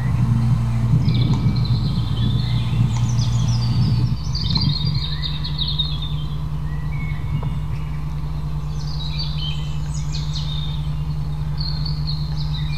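The crane's engine running steadily, its pitch stepping up a little about four seconds in, with small birds calling in quick high twitters over it, twice.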